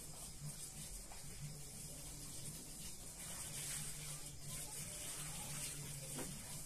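Steady high hiss over a low, steady hum.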